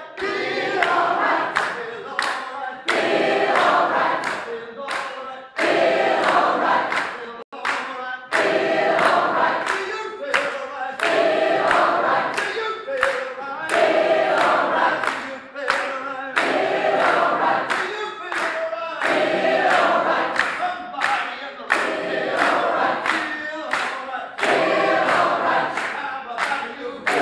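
Large mixed choir singing a gospel song a cappella, with steady hand claps on the beat. The sound drops out for an instant about seven seconds in.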